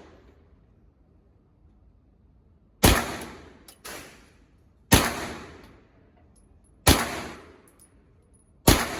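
Four gunshots, evenly spaced about two seconds apart in slow, deliberate fire. Each shot is sharp and followed by a long echoing decay.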